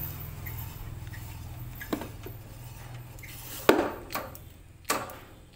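Motorcycle front wheel spinning freely past its disc brake, a steady low hum slowly fading, with a few sharp metallic clicks, the loudest a little past halfway. There is no squeal: the front brake pads have just been cleaned of dirt.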